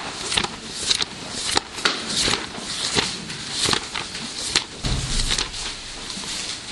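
Bible pages being turned: a run of quick, irregular paper rustles, with a dull bump about five seconds in.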